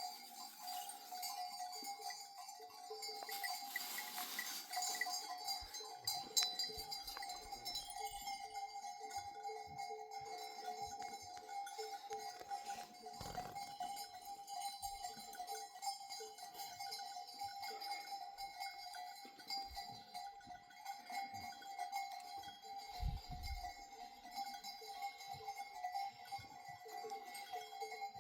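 Bells on a herd of goats and sheep clinking irregularly, over a steady faint tone.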